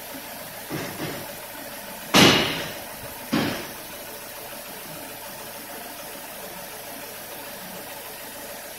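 Nissan Almera N16's 1.8-litre QG18 inline-four idling steadily. Two light knocks come about a second in, then two loud sharp bangs about two and three seconds in, each dying away quickly.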